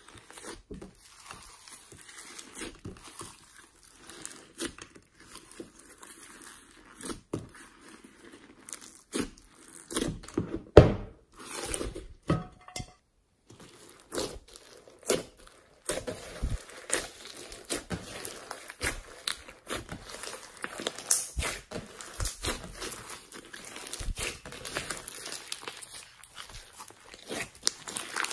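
Hands squishing, stretching and poking slime: a steady run of sticky crackles and small pops, with one loud knock about eleven seconds in.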